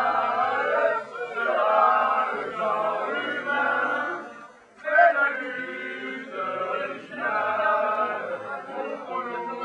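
A crowd of student protesters chanting a slogan together in unison, in repeated phrases of about a second each, with a brief pause about halfway through.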